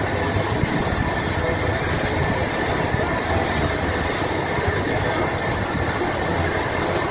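Steady restaurant background noise: a constant rushing hum, like ventilation running over the tabletop grills, with no distinct events.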